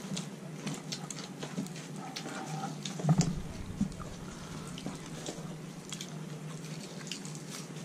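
Close-up eating sounds: chewing and lip smacking, with small clicks of fingers and dishes, over a steady low hum. There is one louder thump about three seconds in.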